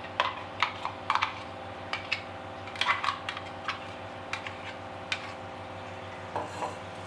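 Steel spoon scraping and tapping against a stainless-steel grinder jar and bowl as coarse-ground lentil paste is scooped out: irregular light clicks and clinks.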